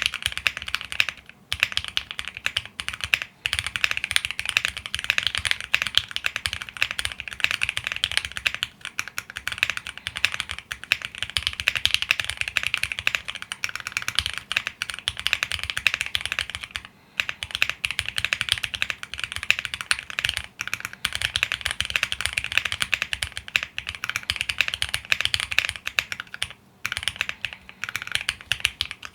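Fast, continuous typing on a custom mechanical keyboard: a QK75 with a polycarbonate plate, lubed Gateron CJ linear switches and PBT keycaps, giving a dense run of keystroke clacks with a few short pauses.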